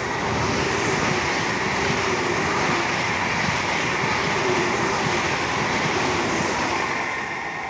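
Trenitalia Frecciarossa 1000 (ETR 400) high-speed train passing through the station at speed: a steady rush of wheels on rail and moving air, with a steady hum running through it, fading near the end.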